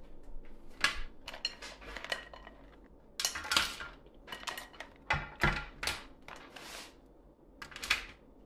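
Shell-on crab legs and clusters clacking and knocking on a metal baking tray as they are laid down one after another, in irregular uneven knocks.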